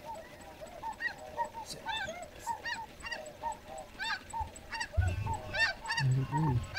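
A large flock of snow geese calling overhead: many short, high yelping honks overlapping without a break. About five seconds in comes a low rumble, then a short low-pitched hum.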